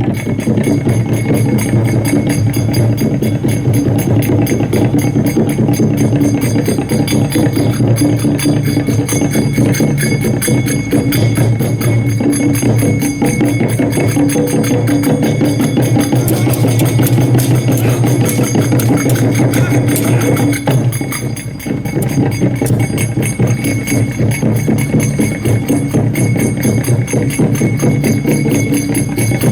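Music with drums and jingling percussion playing steadily, dipping briefly about two-thirds of the way through.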